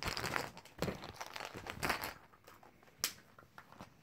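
Plastic bag crinkling and rustling as it is handled, in spells over the first two seconds, then a single sharp click about three seconds in.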